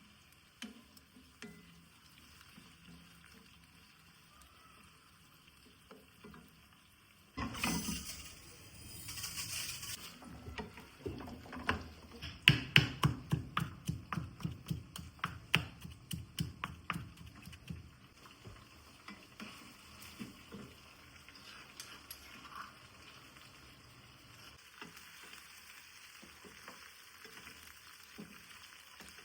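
Kitchen cooking sounds. About seven seconds in, a sudden rush of sizzling noise lasts a couple of seconds. A run of quick utensil knocks follows, several a second for about seven seconds, then a few quieter scattered knocks.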